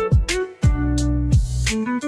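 Background music: short plucked notes over deep bass notes that slide down in pitch, with a steady percussive beat.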